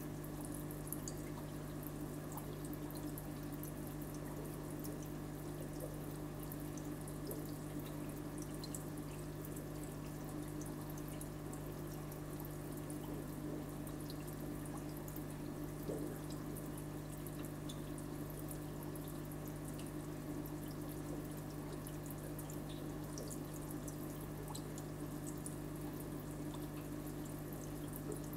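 Aquarium water trickling and bubbling, with many small drips and pops over a steady low electric hum.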